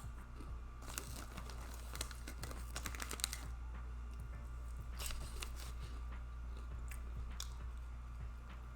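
Close-up chewing and lip-smacking on a soft cheese steak sub, with clusters of wet clicks, heaviest in the first few seconds, over a steady low hum.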